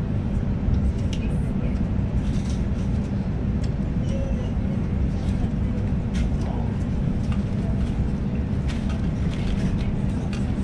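Sydney suburban electric train running, heard from inside the carriage: a steady low rumble of wheels on track with a faint steady hum and scattered clicks and rattles.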